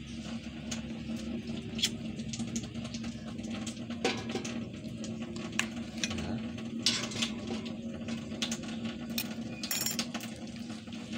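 Cardboard briquettes burning in a small steel briquette stove, giving irregular crackles and pops at uneven intervals over a steady low hum.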